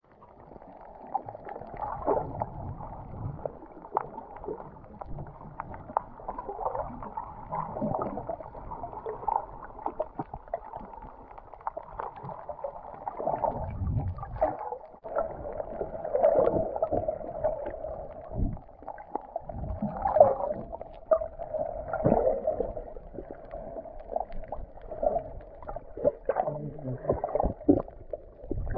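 Muffled underwater sound picked up by a camera in its waterproof housing: water sloshing and gurgling against the case, with uneven loud surges.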